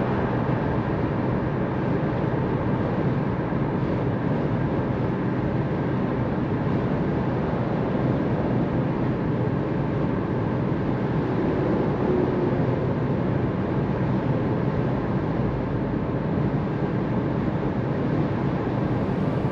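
Steady driving noise heard from inside the cabin of a Jeep Avenger with the 1.2-litre three-cylinder petrol engine: an even road and tyre rumble mixed with engine hum, with no changes in pace.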